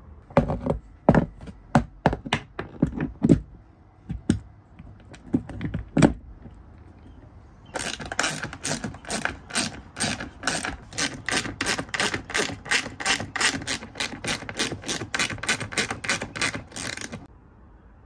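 A few irregular knocks and clunks of metal parts being handled, then a ratchet wrench clicking in a steady rhythm, about four clicks a second, for roughly nine seconds as it tightens the nuts holding a boat steering helm's flange to the dashboard.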